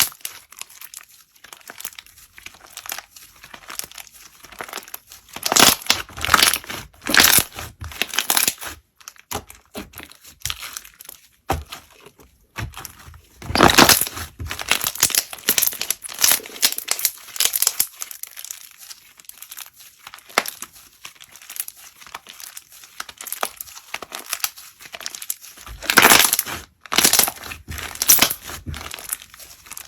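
Slime being squeezed and worked by hand, giving a dense crackling of small pops that swells in a few louder bursts.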